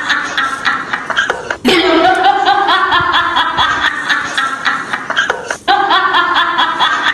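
Background music: a short upbeat tune with a steady beat, looping about every four seconds, with two brief breaks in it.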